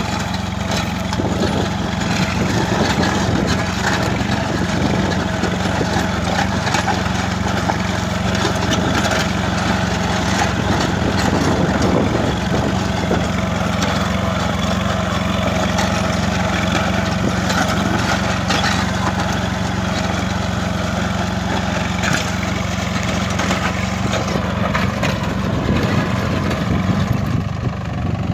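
Captain compact tractor's diesel engine running steadily under load as it pulls a disc plough, with the discs scraping and cutting through dry soil.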